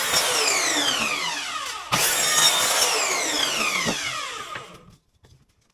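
Power saw ripping scrap wood to size in two passes. Each pass starts suddenly with a falling whine. The second dies away near the end.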